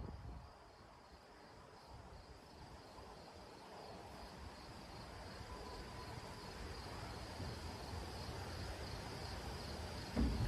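Insects chirping in a steady, high, faintly pulsing drone, over a faint low rumble that slowly grows louder.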